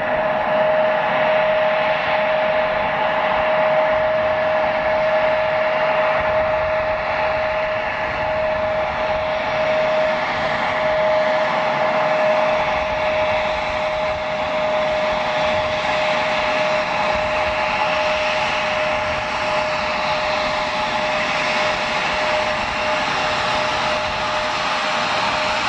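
Embraer E175 jet's two GE CF34-8E turbofans at taxi idle: a steady whine with one strong held tone over an even hiss.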